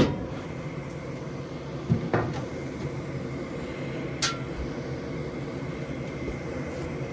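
Goodman gas furnace running on a call for heat, a steady motor hum with a faint high whine. Three sharp knocks cut through it: one at the start, one about two seconds in and one about four seconds in.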